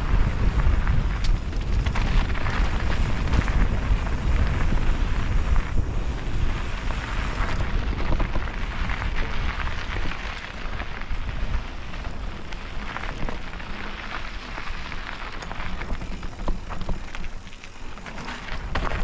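Mountain bike tyres rolling and crackling over a dry dirt and rock trail, with wind rumbling on the bike-mounted microphone. The wind rumble eases about halfway through, leaving mostly the crackle of the tyres.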